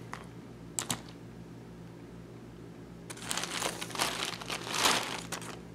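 Thin plastic shipping bag crinkling and rustling as a hand rummages inside it, starting about three seconds in, after two light clicks near the start.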